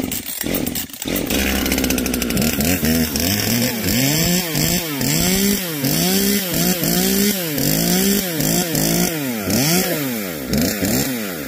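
Husqvarna chainsaw running after finally starting, its revs rising and falling over and over, about once or twice a second, as the throttle is worked.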